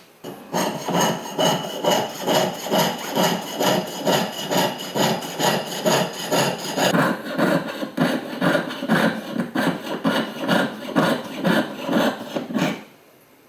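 Jeweler's saw cutting metal in quick, even back-and-forth strokes, about three a second. A thin metallic ring rides over the strokes and drops away about halfway through.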